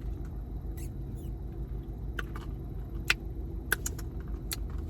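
Sipping a cup of strawberry lemonade through a straw: a handful of short squeaks and clicks over a low steady hum.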